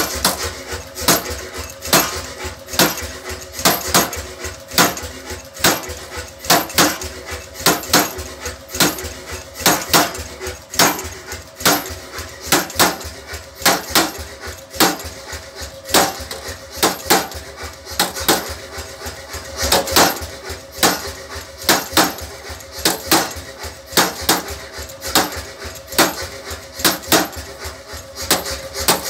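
A power forging hammer's ram strikes a steel sheet on a ridged die again and again, about two metal-on-metal blows a second and unevenly spaced, beating a hammered texture into the sheet. A steady hum runs underneath.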